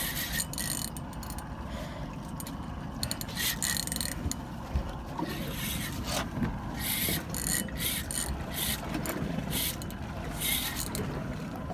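Large saltwater spinning reel under heavy load from a hooked fish: its drag and gears buzz and rasp in short, irregular bursts as line is pulled off and wound back in.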